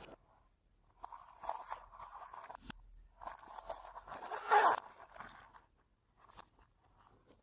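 Slime being worked by hand, crackling and popping in two stretches of a couple of seconds each, loudest about two thirds of the way through.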